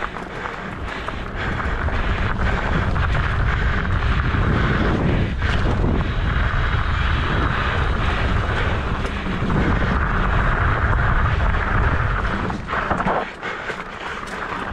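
Wind rumbling over the microphone of a moving mountain bike, with the Trek Stache's wide 29 x 3 tyres rolling over gravel and rock and the bike rattling. The noise swells early on and eases off near the end.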